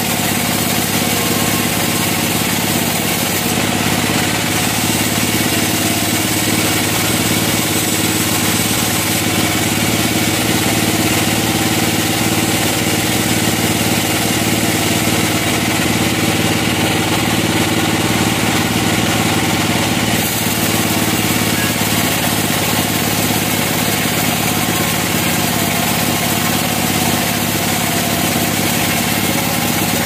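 Band sawmill running with a steady, unchanging drone as its blade cuts lengthwise through a large log.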